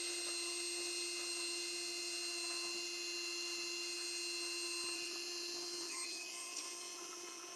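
Dremel rotary tool running at a steady high whine, spinning a stub of 2.85 mm 3D-printer filament against a crack in a 3D-printed part to friction-weld it, with a faint rubbing hiss over the whine.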